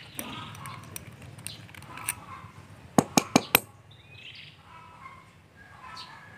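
Four quick, sharp metallic clicks, about a fifth of a second apart, as the small metal parts of a PCP air rifle's fill coupler are handled and fitted together during disassembly. Birds chirp faintly in the background.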